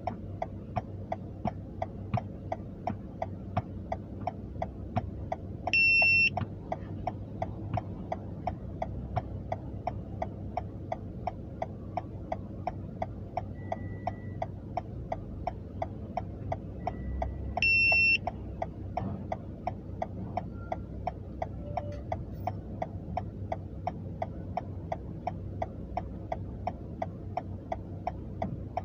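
A car's turn-signal or hazard-light relay ticking steadily inside the cabin while the engine idles with a low hum. Two short high-pitched beeps sound, one about six seconds in and one about eighteen seconds in.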